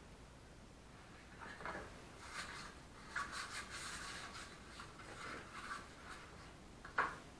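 Faint, rough scrapes of a steel trowel working mortar on brick during bricklaying, several strokes over a few seconds, then one sharp knock near the end.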